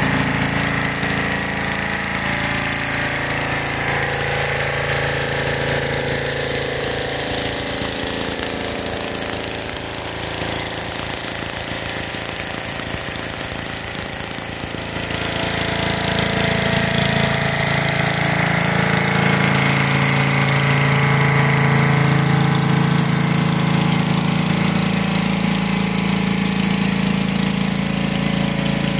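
Pressure washer engine running steadily, with the hiss of water jets spraying under a rotary surface cleaner on concrete. It grows louder about halfway through.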